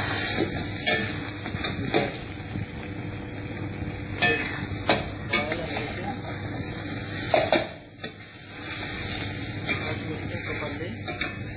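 Whole cumin, chillies and bay leaves sizzling in hot mustard oil in a pan, with a utensil scraping and clicking against the pan as they are stirred.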